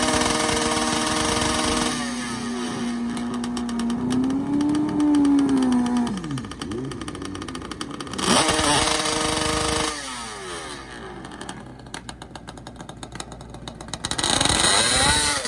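Kawasaki H2 750 two-stroke triple drag bike engine being revved: it holds a steady note, then climbs and falls in pitch several times, with a last rise near the end.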